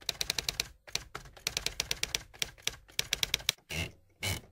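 Typewriter sound effect: quick runs of key clacks as credit text is typed on, followed by three longer, heavier strokes near the end.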